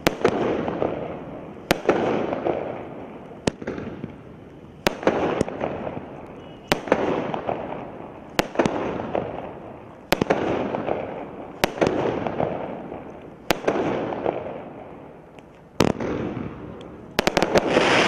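Consumer fireworks cake firing shot after shot, one every second and a half to two seconds. Each shot is a sharp bang followed by the fading hiss of its burst. Near the end, several shots come close together and a louder, bigger burst follows, a titanium chrysanthemum break.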